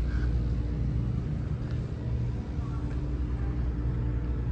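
Steady low rumble of a large building's background noise, with a faint steady hum.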